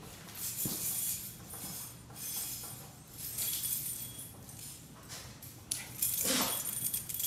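A pack of puppies playing and scuffling on a hard floor, with irregular scrabbling and light clinking and jingling. A brief louder noise comes near the end.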